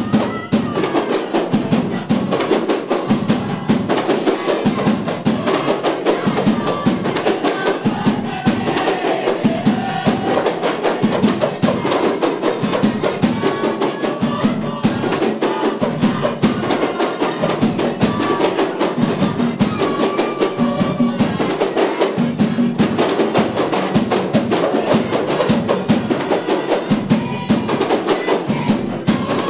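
A kompang troupe playing: many hand-held Malay frame drums struck by hand in a fast, steady, interlocking rhythm, with a big drum among them. A group of voices sings along over the drumming.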